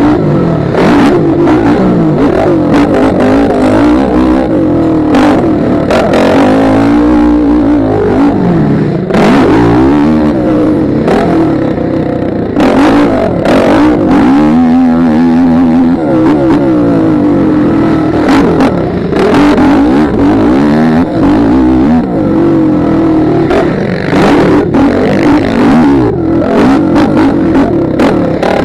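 Motocross bike engine revving hard, its pitch climbing and dropping over and over as the rider works the throttle and gears around the track, with frequent sharp knocks and buffets over the helmet-mounted microphone.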